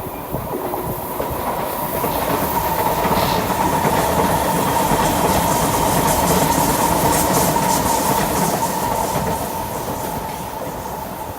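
SMRT North South Line MRT train passing, wheels clacking over the track with a steady whine. It builds for about two seconds, holds, then fades near the end.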